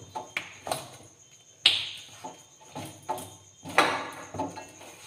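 Kitchen clatter of steel utensils: a series of short knocks and clicks, with a sharp ringing clink about a second and a half in and another loud knock near four seconds.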